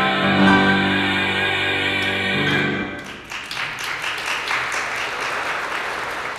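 A tenor, with piano, holds and ends the song's final note about three seconds in. Then applause runs to the end.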